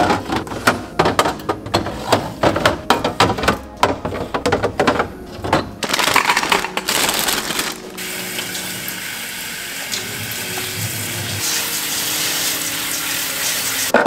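Clicks and knocks of clear plastic fridge organizer bins being handled. From about six seconds in, a kitchen faucet runs steadily, its stream falling onto mini sweet peppers in a stainless steel colander in the sink.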